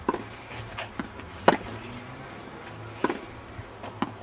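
Tennis balls struck by rackets and bouncing on the court during a rally: sharp pops roughly every second and a half, with fainter knocks between them.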